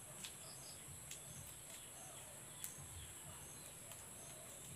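Faint, steady high-pitched insect chorus, like crickets, with a few faint clicks.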